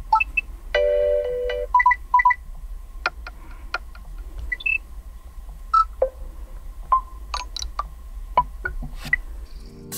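Google Pixel 7 Pro alarm tone previewing: sparse electronic chimes, blips and clicks at irregular intervals, with a short held chord about a second in.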